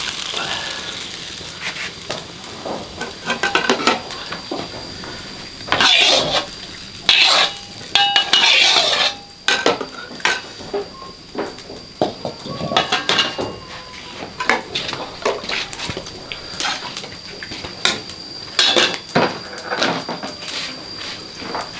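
Metal cookware clattering and scraping: a spatula and ladle scraping and knocking against a wok and cooking pot, with irregular metallic clinks and a few louder bursts of clatter in the middle.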